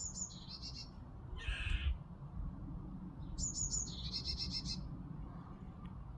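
Squirrel calling with the odd, bird-like sound: two bursts, about three seconds apart, each a few high falling squeaks running into a fast string of chattering clicks. Between them comes a short harsh rasp, the loudest moment.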